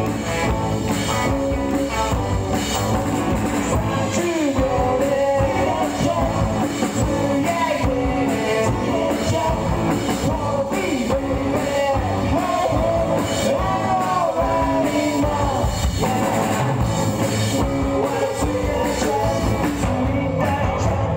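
Rock band playing live in a hall, with electric guitars, bass and drum kit and a voice singing over them.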